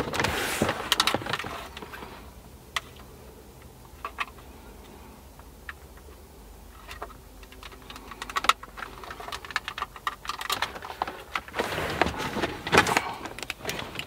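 Small plastic clicks and rattles of an aux adapter's wiring connector being handled and fitted to the back of a factory BMW E46 stereo head unit. The clicking is busy at the start, thins to a few isolated clicks, then picks up again in the second half.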